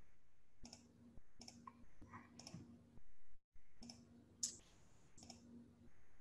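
Faint clicks repeating evenly about every 0.8 s, each with a short low hum beneath it, broken by a brief dropout of all sound a little past the middle.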